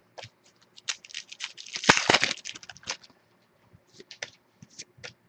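Football trading cards being handled: a string of light clicks and rustles, with a louder crinkle about two seconds in that lasts about half a second.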